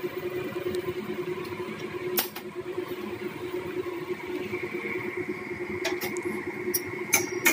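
Potato curry in an aluminium kadai on a gas stove, coming to the boil: a steady hum and hiss, with a few sharp pops, most of them in the last second and a half.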